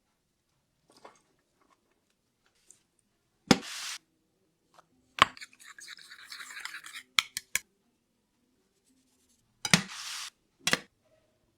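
Utensil knocks and scrapes on dishware: three sharp knocks, each followed by a stretch of scraping lasting up to about a second and a half, with a few light taps in between.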